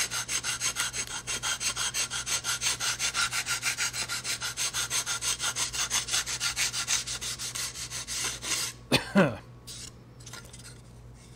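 Bench belt sander with a coarse 60-grit belt grinding balsa wood, the rasp pulsing about seven times a second over the motor's steady hum. About nine seconds in the grinding stops with a brief loud noise, and the motor hum runs on.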